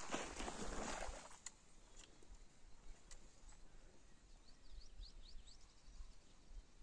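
Quiet open-air ambience with a low wind rumble and a brief rush of noise in the first second. About five seconds in, a bird gives a quick run of short high chirps.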